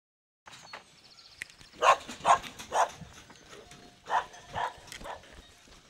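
A dog barking in two bursts of three quick barks each, over quiet outdoor ambience.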